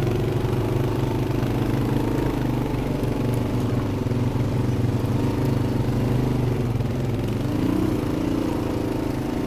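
A Suzuki DR-Z125L dirt bike's small single-cylinder four-stroke engine and a following ATV's engine running steadily at low revs, with a slight shift in pitch near the end.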